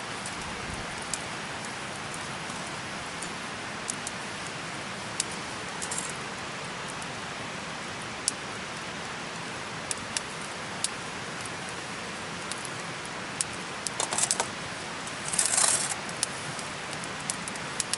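Wood fire in a fire pit crackling: scattered sharp pops and snaps over a steady hiss, with a brief louder flare of crackling near the end.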